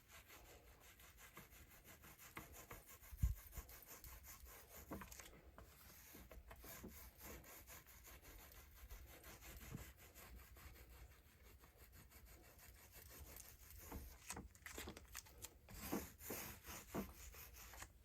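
Faint rubbing strokes as fiberglass resin is spread over the cloth on a drum shell, with one soft thump about three seconds in.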